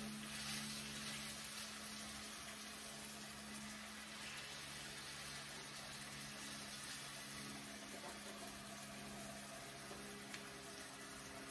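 Raw chicken pieces frying in hot oil in a skillet: a quiet, steady sizzle, with a low steady hum underneath.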